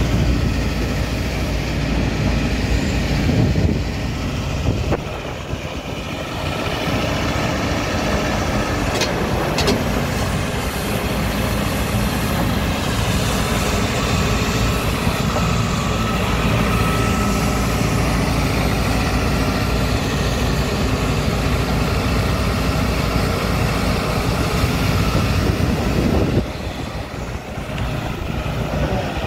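A 2017 Hitachi ZX250LC-6 tracked excavator's Isuzu four-cylinder diesel runs steadily while the machine turns and moves on its tracks. The running is a little quieter near the end.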